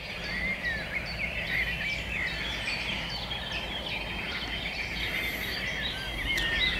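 Dawn chorus: many birds calling together in a dense run of short chirps and whistles, over a low steady hum.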